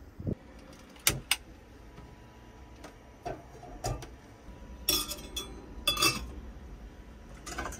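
Stainless steel kettle and pan handled on a gas hob: two sharp clicks about a second in, then a series of short metallic clinks and clatters as the kettle is lifted and set down on the burner grate.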